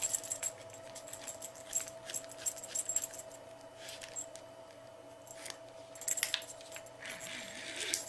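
Light, scattered clicks and rattles of a plastic collar unit and its strap being handled and threaded by hand, over a faint steady hum.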